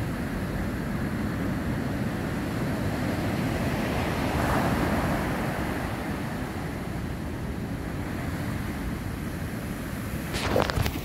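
Pacific surf breaking on a sandy beach, a steady wash of waves that swells about four and a half seconds in, with wind rumbling on the microphone. A few sharp knocks come near the end.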